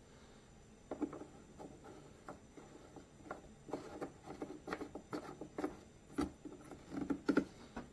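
A string of irregular small clicks and knocks, about one or two a second, from hands working on a Stihl handheld leaf blower as its rebuilt fuel system is readied for priming.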